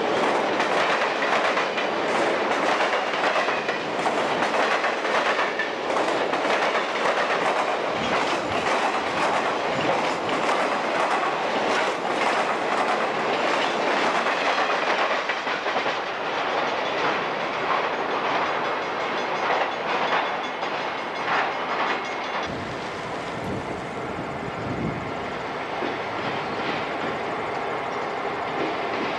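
Freight cars rolling past at close range: a steady rumble with quick clatter of wheels over rail joints, the train running out to its caboose. About three-quarters of the way through, the sound changes abruptly to the lower, duller rumble of an approaching diesel locomotive.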